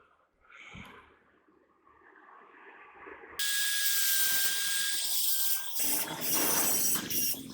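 A power tool starts abruptly about three and a half seconds in: a loud hiss with a steady high whine, turning heavier and rougher near the end.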